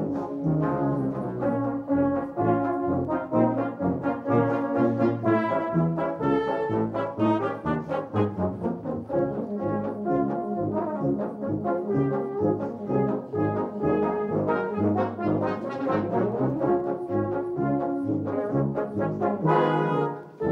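A brass band of cornets, tenor horns, euphoniums, tubas and trombones playing together in a lively, rhythmic passage, with a short break near the end.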